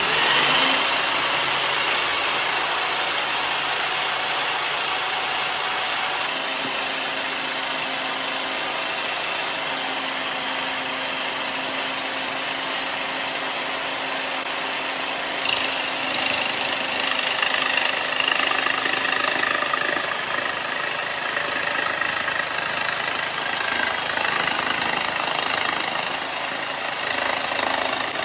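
Electric jigsaw starting up and running steadily with its trigger locked on. About halfway through, the sound turns brighter and uneven as the blade starts cutting a board.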